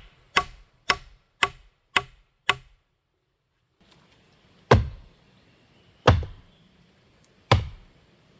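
Repeated strikes of a hand tool on wood. Five quick blows come about half a second apart, then after a short break three heavier, deeper blows about a second and a half apart.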